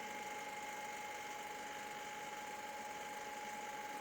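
Steady machine hum with a constant thin whine, unchanging throughout.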